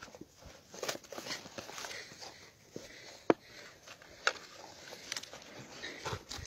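Scattered rustling and crackling of a cardboard wine carton being handled and pulled at while stuck on a fox's head, with a few sharp clicks, the loudest about three seconds in and another a second later.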